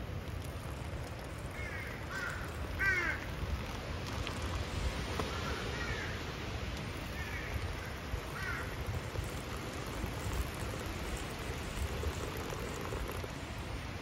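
Crows cawing, a run of harsh calls in the first nine seconds, the loudest about three seconds in, over a steady low background rumble.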